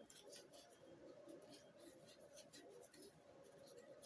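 Faint scratchy clicks and scrapes of a metric Allen key turning a screw into a rifle chassis, tightening it down.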